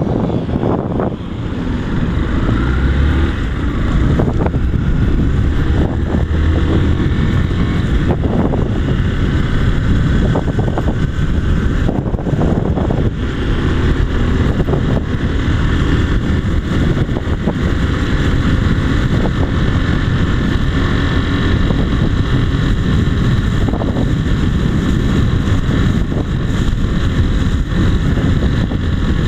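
Yamaha Fazer 150's single-cylinder engine running steadily while the motorcycle is ridden at low speed, with wind rushing past the microphone.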